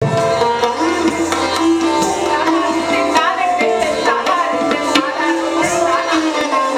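Live Indian classical music: tabla strokes keeping a rhythm under a held melody from a long-necked string instrument.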